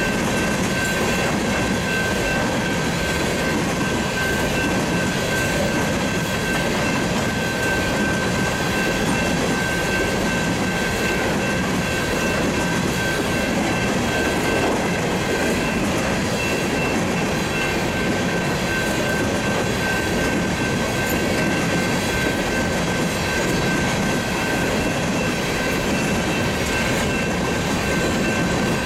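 Empty coal hopper cars rolling past at a steady speed: a continuous rumble and clatter of wheels on rail, with a steady high ringing tone running above it.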